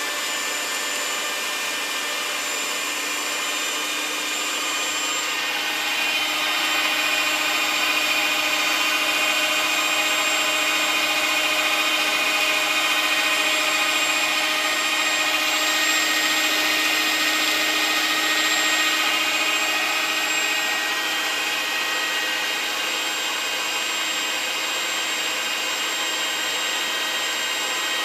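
Vintage 1960s Philips HR1170 stand food mixer running, its electric motor giving a steady whine as the twin beaters turn through the mixture in the bowl. It grows louder about six seconds in and eases back slightly around twenty seconds in.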